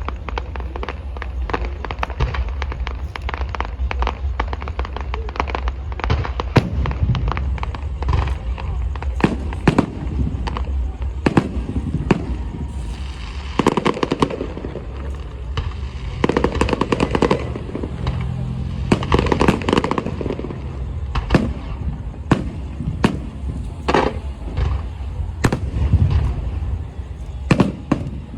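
Aerial fireworks display: a dense, continuous run of shell bursts and crackle, with sharp louder bangs scattered throughout.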